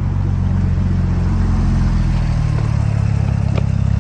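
Porsche 911 Turbo's twin-turbo flat-six running at low revs as the car pulls away slowly; a steady low exhaust note that grows a little louder and pulses slightly near the end.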